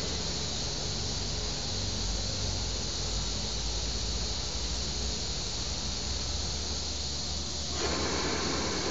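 Oxy-acetylene cutting torch on a CNC cutting table, hissing steadily over a low hum. Near the end the sound changes, with more mid-pitched rushing noise coming in.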